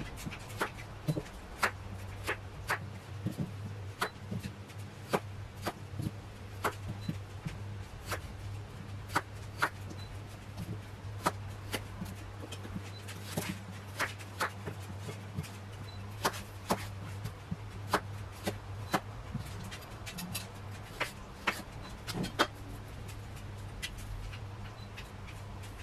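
Knife cutting potatoes into wedges on a wooden cutting board. There is a sharp knock each time the blade meets the board, irregular, about one or two a second, over a low steady hum.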